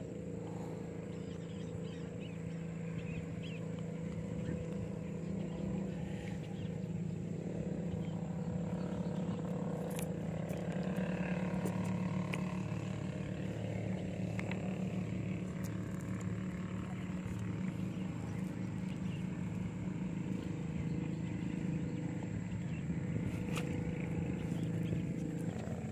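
A steady engine drone at an even pitch, with a few light clicks and rustles on top.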